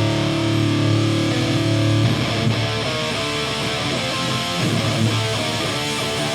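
Hardcore punk band playing live, led by distorted electric guitar: a chord rings out for about two seconds, then the guitars break into a riff of changing notes.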